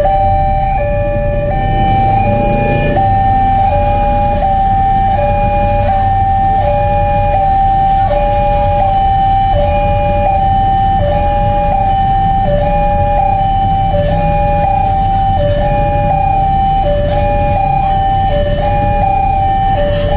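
Railway level-crossing warning alarm: an electronic signal switching between a higher and a lower tone, about two tones a second, that sounds while a train approaches and the barriers are down.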